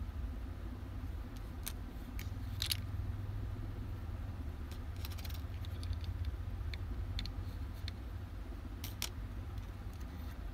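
Scattered light clicks and taps of small tools and parts being handled during a repair, over a steady low hum.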